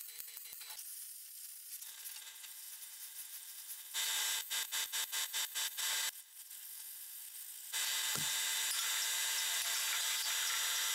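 MIG welder laying stitch welds on thin steel body panel: a stuttering run of short bursts about four seconds in, then a longer steady weld of about three seconds near the end. The welds are kept short to limit heat and warping in the thin panel.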